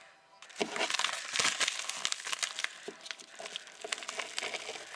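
Paper packaging crinkling and rustling as a small mailed package is opened by hand, with irregular crackles and clicks starting about half a second in.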